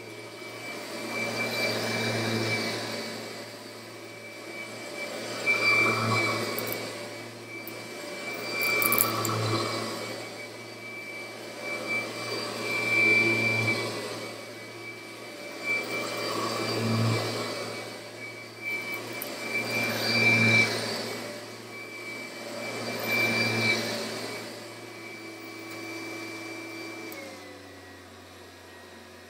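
Kirby Ultimate G Diamond Edition upright vacuum cleaner running on carpet, its motor whine swelling and fading about every three and a half seconds as it is pushed back and forth. Near the end it gets quieter and its pitch drops.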